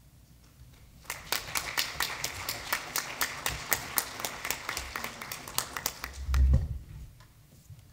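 Applause, starting about a second in and fading out near the end, with a low thump as it dies away.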